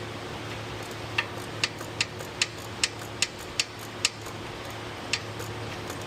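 3/8-drive ratchet clicking in a slow series of single sharp clicks, about two to three a second, over a low steady hum. The ratchet is turning a 24 mm socket on the oil pressure switch.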